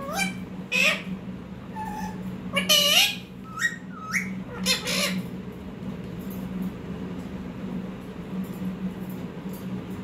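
A pet rose-ringed parakeet giving about five short, pitch-bending calls in the first five seconds, the loudest near three seconds in, then falling quiet. A steady low hum runs underneath.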